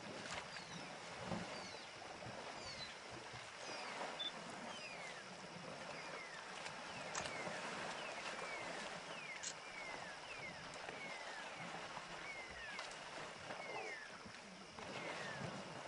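Water sloshing and splashing around swimming African elephants, over a night chorus of short falling chirps, about one a second, and a faint steady high tone.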